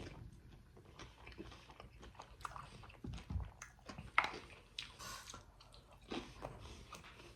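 A person biting and chewing a fried chicken slider close to the microphone: faint, irregular chewing with small crunches and a sharper crunch about four seconds in.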